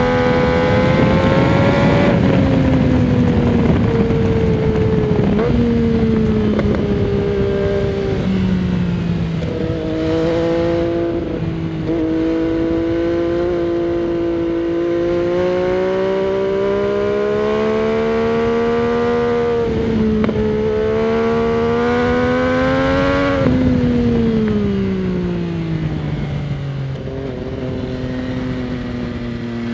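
2022 MV Agusta Dragster 800 RR's 798 cc inline three-cylinder engine, heard from the rider's seat through its Fresco Trio Corse exhaust fitted with a dB-killer, pulling the bike along at road speed. The engine note falls in steps over the first ten seconds, then climbs steadily under acceleration. It dips once about two-thirds of the way in, climbs again, and then falls away as the revs drop near the end.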